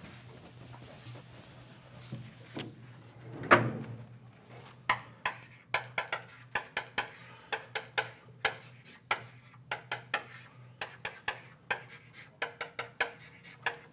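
Chalk writing on a blackboard: one sharp knock a few seconds in, then a run of quick taps and short scrapes, two to three a second, over a faint steady low hum.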